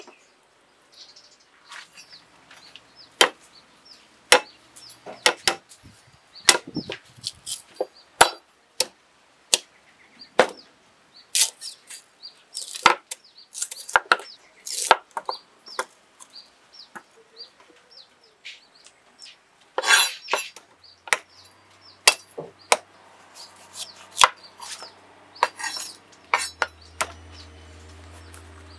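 Knife chopping on a cutting board in irregular strokes, with sharp knocks spread unevenly throughout. A low steady hum comes in near the end.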